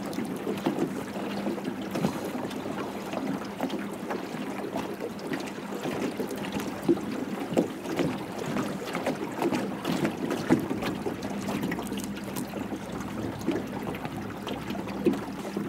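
Water lapping against the hull of a small fishing boat, with wind on the microphone and many small clicks and crackles throughout. A faint steady low hum runs underneath.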